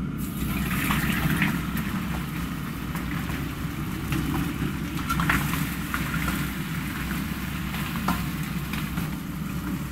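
Raw chicken pieces tipped into hot rapeseed oil, sizzling the moment they hit and then frying steadily as they are stir-fried to render their fat. A metal ladle scrapes and clinks against the pot now and then, over a steady low rumble.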